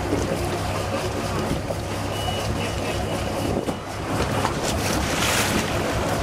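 Caterpillar 3116 marine diesels running at idle with an even low pulsing, heard from outside at the stern. Their wet exhaust splashes cooling water out at the transom, with a brief hiss about five seconds in.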